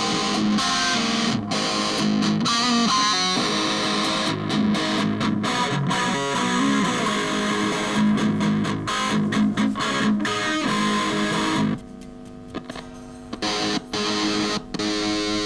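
Custom SYN G electric guitar by AD Gitar, played with distortion in a run of continuous single-note lines and chords. About 12 s in it drops to a quieter passage for a second or two, then picks up again.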